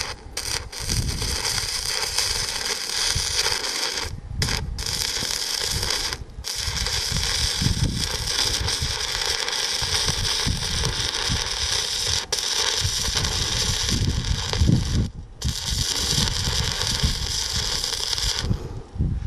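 Stick (shielded metal arc) welding arc from a SUZUKID IMAX80 welder crackling steadily as a bead is run, breaking off for a moment a few times and stopping shortly before the end.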